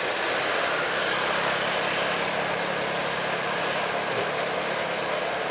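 Diesel engines of heavy trucks, a loaded dump truck in front, rounding a bend at low speed: a steady engine drone with road noise.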